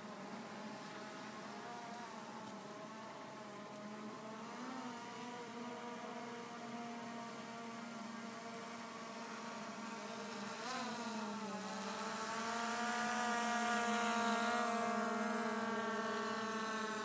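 Skydio 2 quadcopter's propellers buzzing steadily in flight. The pitch wavers briefly twice, and the buzz grows louder in the second half as the drone comes closer.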